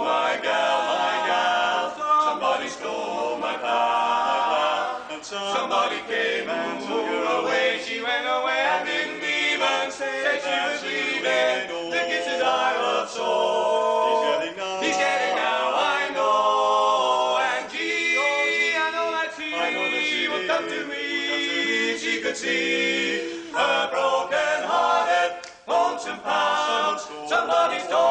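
Male vocal quartet singing a cappella, four voices holding chords together with no instruments.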